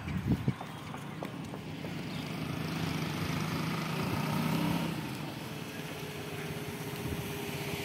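A motorcycle engine running on the road, growing louder to a peak about halfway through and then holding a steady hum. A few sharp clicks near the start are hooves of a sheep flock on the paved road.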